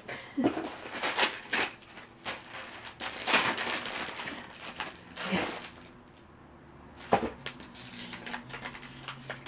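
Wrapping paper and plastic rustling and crinkling in irregular handfuls as a gift is unwrapped, with a sharper crackle a little after seven seconds.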